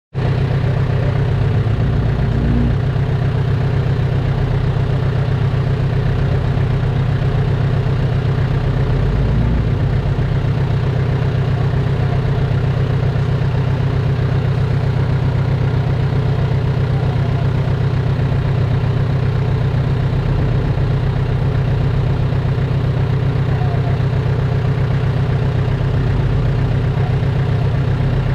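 Heavy earthmoving machine's diesel engine running steadily at an even, low speed, with no change in revs. It cuts in suddenly at the start.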